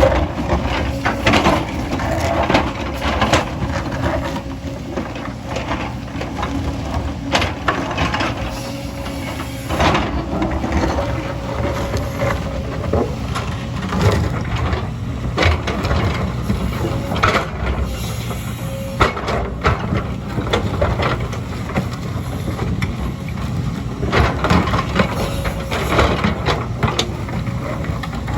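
Diesel engine of a heavy earthmoving machine running steadily under load, with repeated clanks, knocks and scraping of metal on earth and rock.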